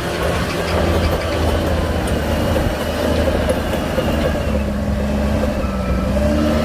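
Heavy diesel engine of earthmoving machinery running hard and steadily, its pitch dipping slightly and rising again near the end.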